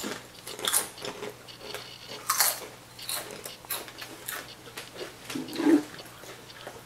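Two children biting and chewing Pringles potato chips, with irregular crisp crunches. A louder brief sound comes about five and a half seconds in.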